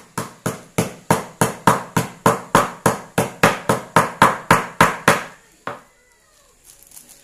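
Cleaver chopping garlic on a cutting board: a steady run of sharp chops, about three a second, that stops about five seconds in, followed by one last chop.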